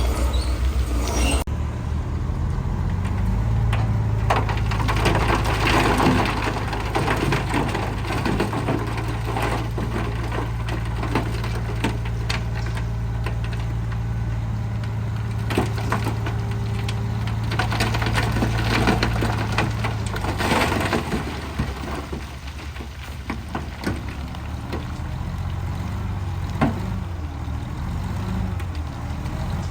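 Bulldozer diesel engine running under load while stone crunches and cracks under the blade and tracks. The engine drone eases about two-thirds of the way through.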